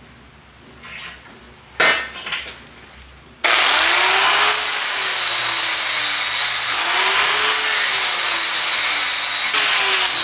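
A metal clank, then about a third of the way in an angle grinder starts grinding a bevel on the edge of a steel plate clamped in a vise, loud and steady, its tone falling and rising a few times as it works.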